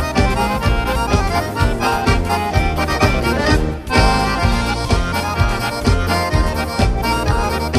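Instrumental accordion-led bandinha dance music, with a steady, evenly pulsing bass beat.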